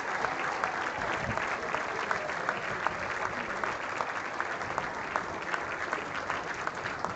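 A large crowd of spectators applauding steadily. Many hands clap together, with some nearer claps standing out.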